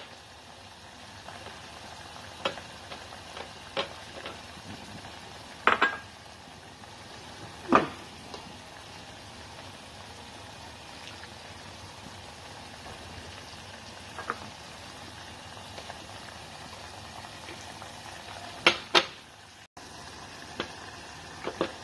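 Ground beef boiling in liquid in a saucepan on a gas stove: a steady bubbling hiss with a few sharp clicks now and then.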